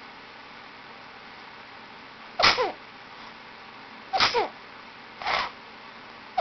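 A run of sneezes: three short, sharp sneezes a second or two apart, with a fourth starting right at the end. The first two trail off in a brief falling squeak.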